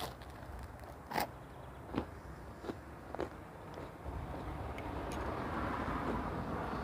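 Mouth chewing a bite of crusty baked food, with a few separate crunchy clicks in the first half. A steady rushing background noise swells over the second half.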